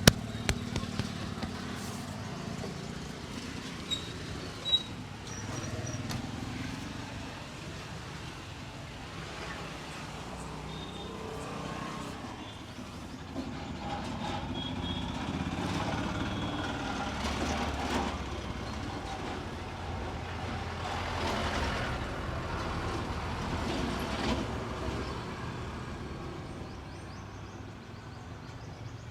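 Road traffic passing, vehicles swelling and fading, with a sharp click about five seconds in.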